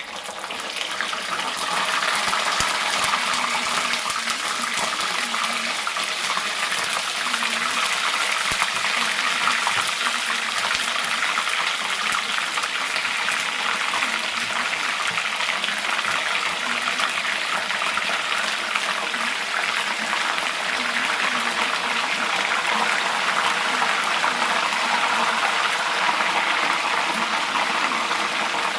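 Water running steadily in a strong stream, building up over the first couple of seconds and then holding even.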